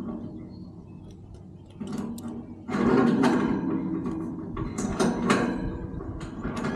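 Mechanical rattling and clanking, louder from about three seconds in, with repeated knocks.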